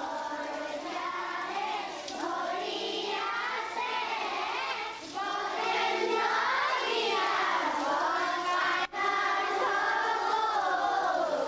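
A group of children singing together in unison, a sustained sung melody, broken by a momentary cut about nine seconds in.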